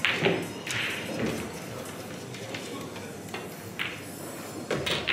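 Pool tournament hall ambience: a murmur of voices with scattered sharp clicks and knocks of billiard balls from other tables, echoing in the large room.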